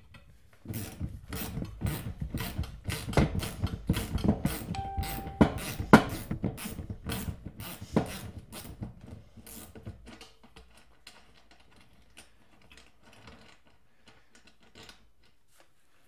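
Ratchet wrench clicking in quick runs as the nut holding the mini bike's seat is loosened, with a few harder knocks of metal on metal. The clicking thins out after about ten seconds and fades to faint ticks.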